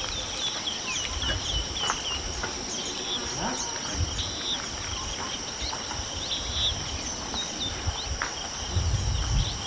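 Bush ambience: a steady high-pitched insect trill with many short bird chirps over it, and irregular low rumbling that grows strongest near the end.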